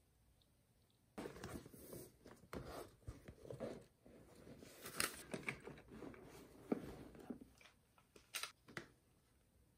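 Close handling noises: soft rustling and crinkling in irregular bursts, with a few sharp clicks or taps.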